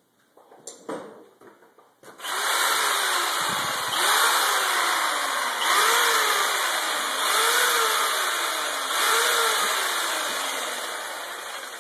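Power tool run in repeated pulses, its motor speeding up and slowing down about every second and a half to two seconds, over a loud hiss. It starts about two seconds in after a few light knocks and slowly fades near the end.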